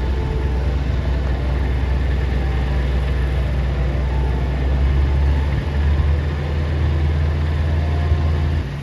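A heavy engine idling, a steady low hum that shifts slightly about halfway through and drops away near the end.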